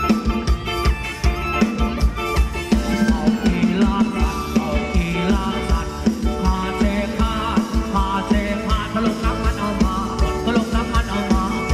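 Live band playing upbeat Thai ramwong dance music, with a steady drum-kit beat, electric guitar and keyboard, and a woman singing the melody into a microphone.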